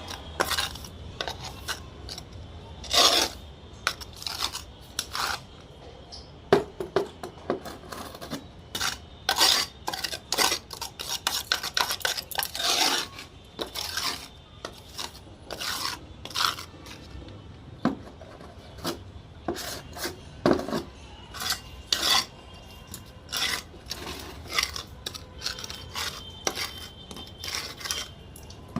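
Metal pots and utensils being scrubbed by hand, in irregular short rasping strokes with an occasional clink.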